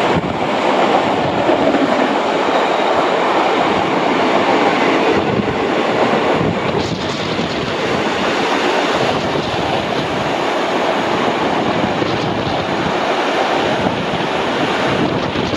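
Steady rumble and clatter of railway carriage wheels on the rails as a line of heritage wooden passenger carriages runs past at speed on the adjacent track, close alongside the moving train, with wind noise on the microphone.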